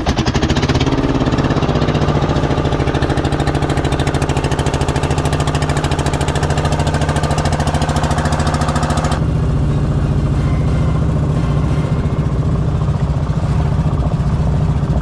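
Fishing boat's diesel engine running steadily with a fast, even beat as the boat gets under way. About nine seconds in, the higher hiss drops away while the engine note carries on.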